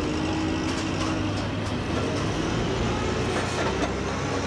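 Forklift engine running as it backs away from the aircraft's cargo door, over a steady engine hum with scattered small clicks and rattles.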